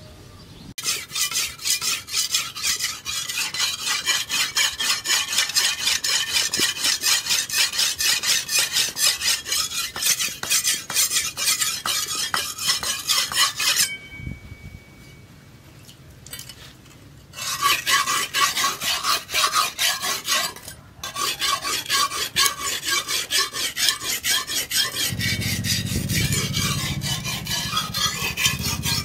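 Steel cleaver blade, forged from a tractor disc-plough disc, being sharpened on a whetstone: rapid, even back-and-forth rasping strokes, pausing for a few seconds about halfway through.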